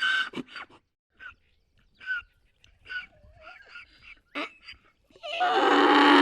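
Donkey braying: a few short, broken calls and faint wheezy breaths, then a long, loud bray starting about five seconds in.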